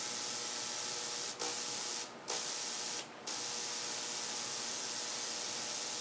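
Homemade spark-gap Tesla coil powered up: a steady hissing buzz with a faint hum under it. It cuts out briefly three times, about one and a half, two and three seconds in.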